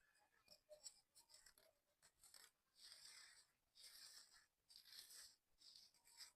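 Dry sand-cement crumbling: a run of small crackles, then several longer gritty crumbles about a second apart.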